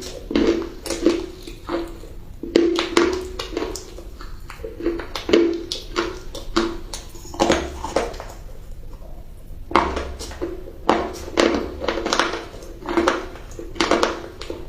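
Close-up crunching of crunchy food being bitten and chewed, sharp cracks coming in quick irregular runs with a couple of short pauses.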